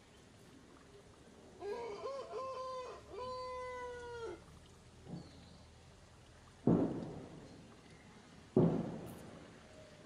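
Newborn baby macaque crying: a few short high calls, then one longer call that dips slightly at the end. Later come two sharp thumps, each fading over about a second, and a third at the very end; these are the loudest sounds.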